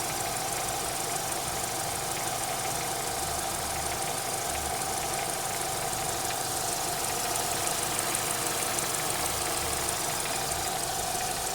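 Renault K4M 1.6 16-valve petrol engine running hot, with a light repetitive knocking and a chirp over its steady running sound. The owner says these noises appear only once the engine is warm, are absent when it is cold, and began after an oil change to ZIC X9 5W-40.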